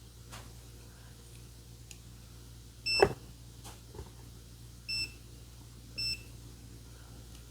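Digital multimeter beeping: three short high beeps about three, five and six seconds in, the first together with a sharp click.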